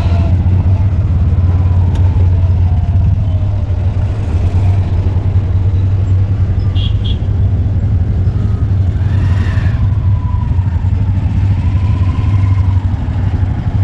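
Engine of a vehicle being ridden in, running steadily with a low, even drone, amid road traffic noise.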